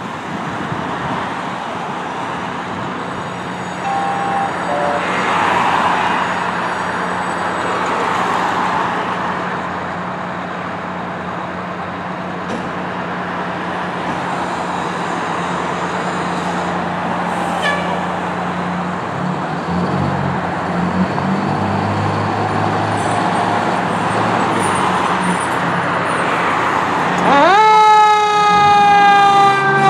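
1992 Pierce Lance fire engine's diesel engine idling steadily, its note changing as the truck moves off. Near the end a siren winds up sharply and begins a slow sweep down.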